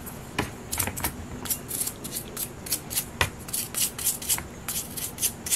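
A small stiff brush scrubbing the grimy outside of a lawnmower carburetor in a pan of cleaner before it is taken apart. It makes quick, irregular scratchy strokes, about two or three a second.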